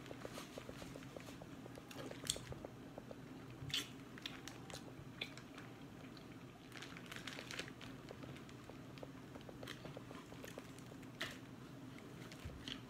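Mouth sounds of a person chewing boiled crab, with scattered small clicks and a few sharper cracks of crab shell being picked apart by hand, over a faint steady hum.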